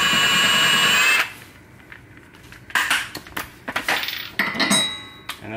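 Cordless Milwaukee M18 Fuel 1/2-inch impact wrench hammering a lug nut down onto a wheel-stud installer, pulling a new extended wheel stud into the hub. It stops about a second in and is followed by a few metallic clicks and clinks of the tool being handled.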